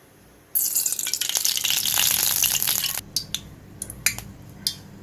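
Cooking oil hitting a hot, dry kadai: it starts sizzling suddenly about half a second in and loudly for about two and a half seconds, then settles to scattered crackles and pops.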